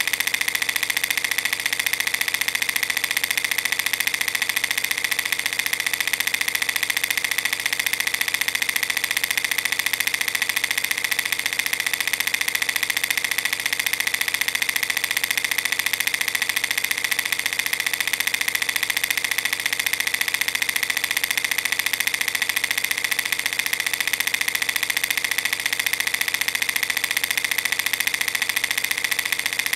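Film projector running: a steady, fast mechanical clatter and whir that does not change.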